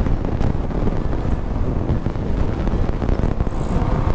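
Wind buffeting the microphone of a moving motorcycle, with the engine and road noise running steadily underneath.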